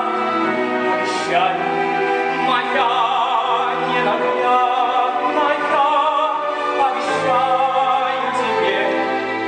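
Live stage-musical music: a singer holding long notes with vibrato over an orchestral accompaniment.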